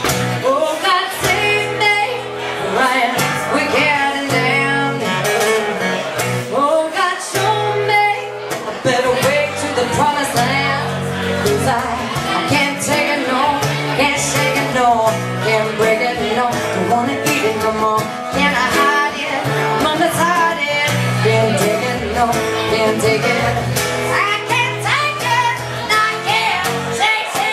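A woman singing into a microphone over an acoustic guitar played steadily, as a live acoustic duo.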